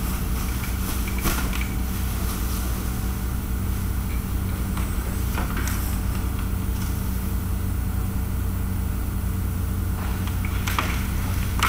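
Steady low hum and rumble of a large hangar's room tone, with a few faint clicks and knocks.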